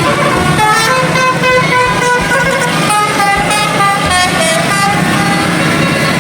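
Indonesian bus telolet horn, a multi-tone air horn, playing a quick melody of short notes that step up and down, over the steady running of a bus engine.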